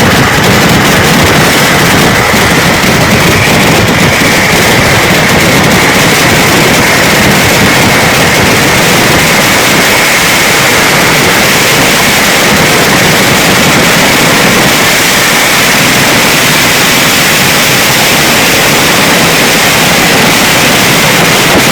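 Vedikkettu firecracker barrage going off so rapidly that the bursts blur into one loud, continuous noise, with no single bang standing out.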